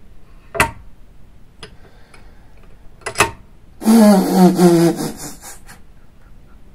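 Sharp metal clicks from the pivoting breech of a small 12-gauge cannon being worked by hand: a single click, then a quick double click. A man's brief wordless vocal sound, louder than the clicks, comes just after the middle.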